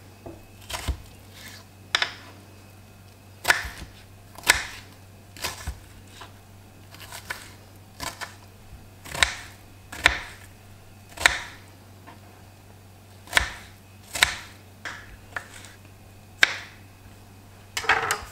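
Kitchen knife cutting strawberries into small cubes on a wooden cutting board: irregular knocks of the blade striking the board, roughly one a second.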